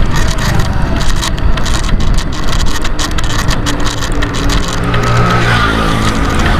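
Wind rushing over the microphone of a bicycle rider moving along a road, with road traffic. About four seconds in, an engine can be heard going by for a couple of seconds.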